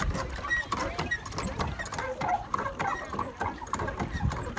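Hand water pump of a rubber-duck race being worked: irregular squeaking and clanking from the pump handle, with water sloshing in the trough.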